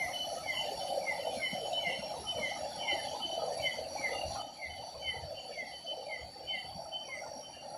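Night-time tropical forest chorus: crickets and other insects trilling steadily at a high pitch, with a short falling chirp repeated about twice a second, over a steady rushing hiss.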